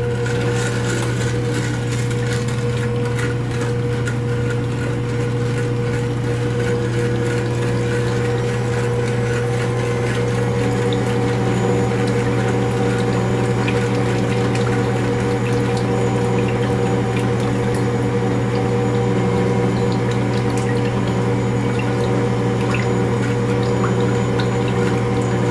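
Ankarsrum Assistent stand mixer running on low speed: its motor hums steadily as the rotating stainless bowl churns and sloshes a wet mix of water, sugar, butter and eggs against the roller.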